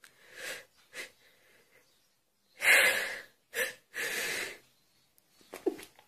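A woman sneezing: a couple of quick, faint intakes of breath, then a loud, sudden sneeze about two and a half seconds in, followed by shorter breathy sounds.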